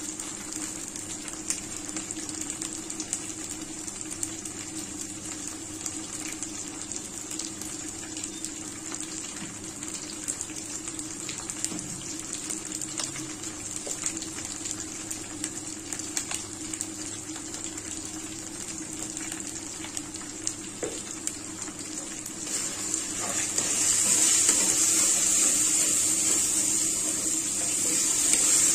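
Meat, onions and spices frying in oil in a steel karahi over a gas burner: a steady hiss with faint scattered crackles. About 23 seconds in, water is poured into the hot pan and the sound swells into a louder rush of pouring and sizzling.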